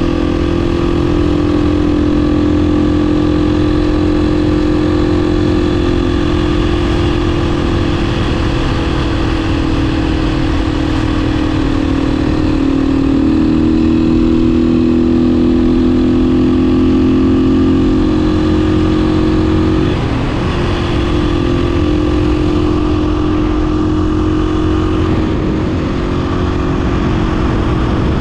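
A 2016 Beta 500 RS supermoto's single-cylinder four-stroke engine running steadily under way. Its pitch dips a little about halfway through and comes back up about two-thirds in, over a steady rushing noise.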